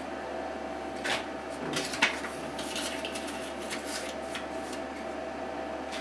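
A string of light metallic clinks and clatters from small metal parts or tools being handled, the sharpest just after two seconds in, over a steady machine hum.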